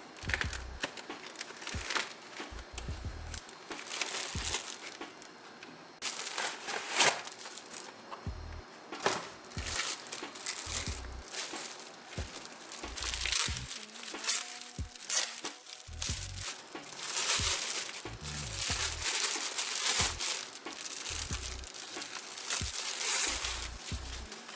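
Packaging crinkling and rustling in irregular bursts while a pair of headphones is unboxed.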